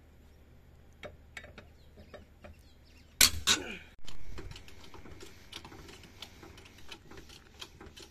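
Scattered metallic clicks and clanks of a cross lug wrench and tools at a VW Kombi's front wheel while the wheel is taken off for a tyre swap, with a louder clatter about three seconds in and busier clicking after it.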